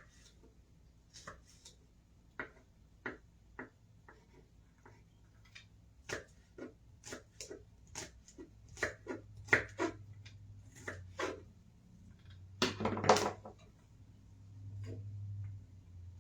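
Metal utensil clicking, knocking and scraping in a skillet as browned taco meat is stirred: irregular sharp clicks, quickening to about two a second, with a louder burst of knocks and scraping about thirteen seconds in.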